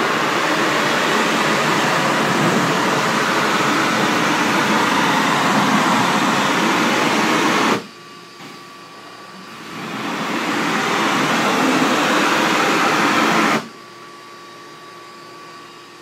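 Spray nozzle hissing as mist is blasted onto air-conditioning condenser coils, in two long bursts that cut off suddenly: the first runs about eight seconds, the second about four seconds after a short pause. A faint steady hum remains between and after the bursts.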